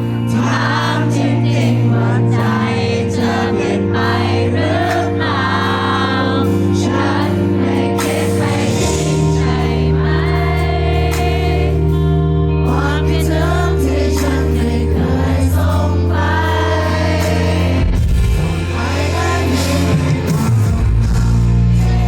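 Background music: a Thai-language song with a singing voice over held bass and chord notes.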